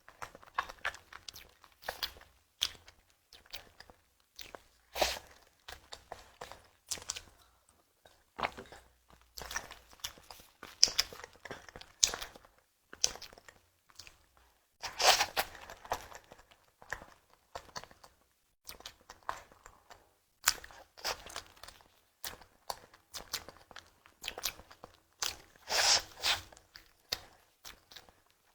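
Close-miked eating: a person biting and chewing a tiger skin dessert, with irregular crunchy, wet mouth sounds. There are louder, longer bites about halfway through and again near the end.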